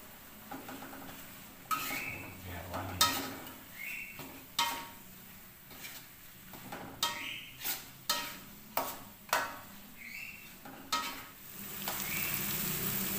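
Metal spatula stirring green chili paste in a wok, with a dozen or so sharp scrapes and knocks against the pan, some with a short metallic ring. Under them the paste sizzles as it fries, and the sizzle turns steadier and louder near the end.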